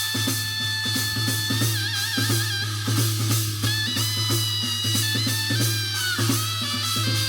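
Korean shamanic ritual (gut) music: a melody instrument holding long notes with wavering ornaments over quick, steady drum strokes.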